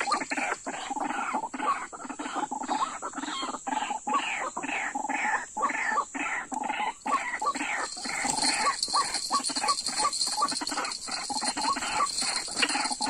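White-breasted waterhen calls repeated in a fast, even run, about three a second, used as a lure call at a bird trap. A steady high hiss grows louder about eight seconds in.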